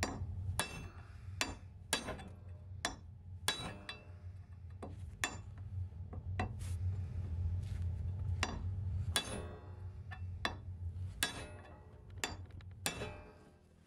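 Hammer striking a steel pin punch to drive an old copper nail out of a rusty iron strap held on a vise: a string of sharp metallic taps at uneven intervals, about a dozen and a half in all. The nail will not drive out.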